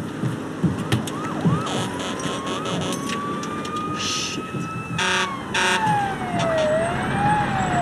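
A siren-like wail that rises slowly, then falls, lifts briefly and falls again, over vehicle noise, with two sharp crashes about five seconds in.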